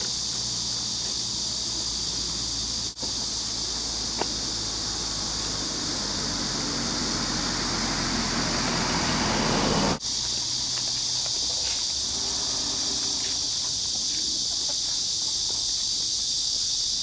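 Insects droning in a steady, high, even buzz. A low rushing noise builds from about six seconds in and cuts off suddenly near ten seconds, and the sound drops out briefly twice.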